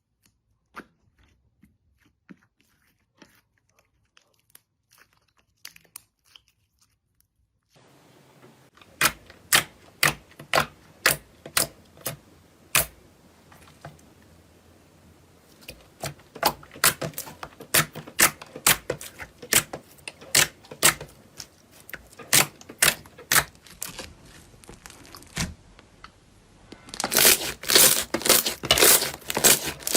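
Slime being squeezed and pressed for ASMR, making sharp pops and crackles. There are a few faint clicks at first. From about eight seconds in the pops come roughly twice a second, and near the end they run together into dense, loud crackling.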